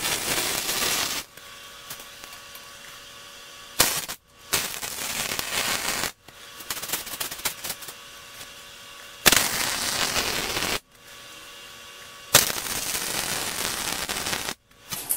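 MIG wire welder arc crackling in four runs of one to two seconds each, with short pauses between, as steel fish plates are welded onto frame rails.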